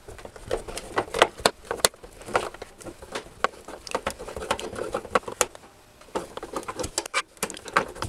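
Screwdriver turning a screw in the plastic back casing of an old stereo: irregular small clicks and scrapes of the tool and the handled case.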